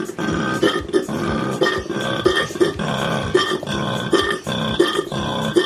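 Koala bellowing: a steady run of pulsed calls, about three a second.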